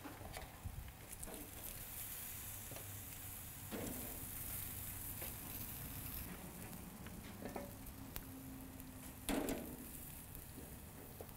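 Grilled chicken and asparagus sizzling faintly on a barbecue grill grate. Metal tongs knock and scrape a few times against the grate and an aluminium sheet pan as the food is lifted off, with one louder clank near the end.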